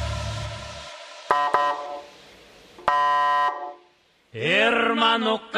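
Reggaeton DJ mix at a transition: the bass-heavy track fades out during the first second, two short electronic tones follow, and after a brief gap a chanted vocal comes in about four and a half seconds in.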